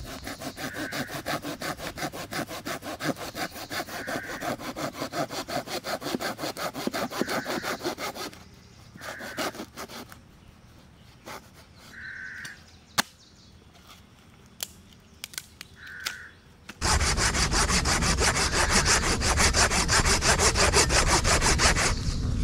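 Folding pruning saw cutting a dry branch with quick back-and-forth strokes, about three a second. The sawing stops midway, leaving a few light knocks, then starts again louder and denser near the end.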